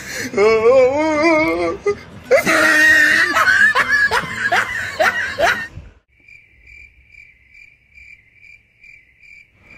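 Laughter: a high, wavering voice, then a loud run of laugh strokes. About six seconds in, the room sound cuts out and an even cricket chirping takes over, about three chirps a second, an edited-in "crickets" sound effect.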